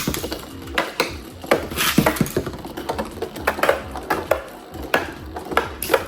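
Two metal-wheeled Zero-G Beyblades spinning and clashing in a stadium: irregular sharp metallic clacks, several a second, over a steady scraping whirr.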